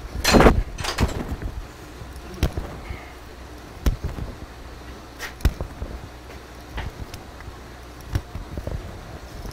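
Scattered metallic clicks and knocks of a tap wrench and tap being handled while a hole in a hammer head is threaded by hand in a mill vise, with a short louder rustle just after the start.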